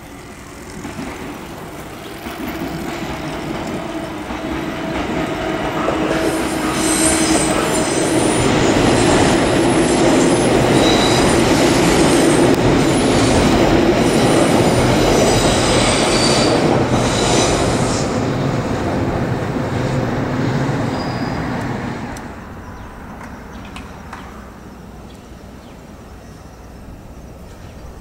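A train running past. It builds up over several seconds, stays loud with high-pitched wheel squeal, then fades out sharply a little over twenty seconds in.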